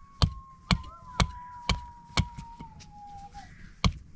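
Steady chopping blows, about two a second, with a pause near the end. Over them a long high held note slowly falls in pitch and stops about three and a half seconds in.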